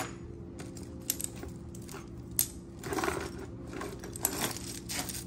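Small pieces of costume jewelry clicking and clinking as they are handled and set down on a cloth-covered table, a handful of sharp ticks with two brief rustles in between, over a faint steady hum.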